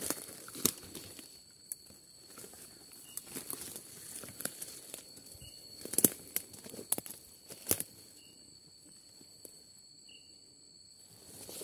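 Footsteps and rustling through dry leaves and undergrowth, with scattered sharp cracks of twigs and branches, the loudest about six seconds in and again near eight seconds. A steady high whine runs underneath, with a few short high chirps.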